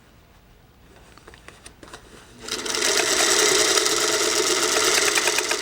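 Electric sewing machine starting up about halfway in and running steadily at speed, stitching a quilt seam, after a few faint clicks of fabric being handled.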